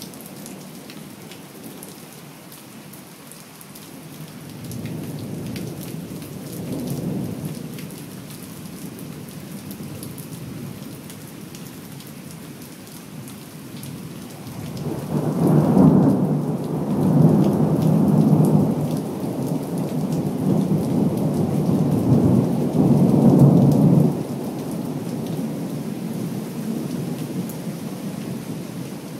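Steady rain falling, with rolling thunder. A low rumble swells about five seconds in, then a much louder, longer peal comes about halfway through, rumbling for some nine seconds before it stops abruptly.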